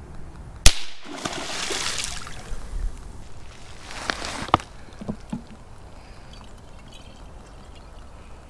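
A single handgun shot about a second in, followed by a couple of seconds of splashing water. Later, smaller sloshes and trickling as a hand dips into shallow creek water.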